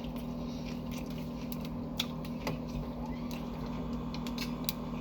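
A person chewing a cold sub sandwich, with scattered small wet mouth clicks and ticks, over a steady low hum.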